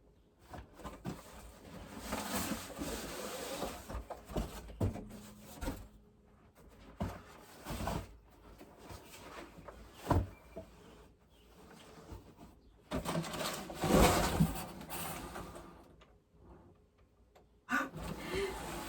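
Cardboard box and packaging being handled and unpacked: irregular scraping and rustling with a few sharp knocks, busiest about thirteen to fifteen seconds in.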